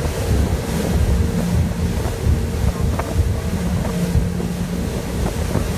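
MAKO 414 CC center console fishing boat running under way: a steady engine hum under a low rumble of wind buffeting the microphone and water rushing past the hull.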